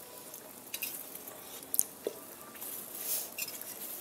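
Scrambled eggs sizzling faintly in oil in a stainless steel pan, while a metal spatula scrapes and clinks against the pan a few times. The sharpest clink comes a little under two seconds in.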